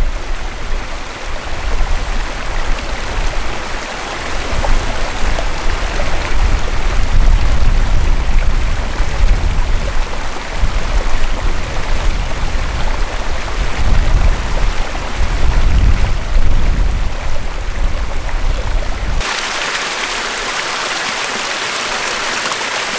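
Small mountain waterfall splashing over rocks: a steady rush of water with a deep rumble underneath. About 19 seconds in it changes abruptly to a brighter, steadier rush of water with no rumble.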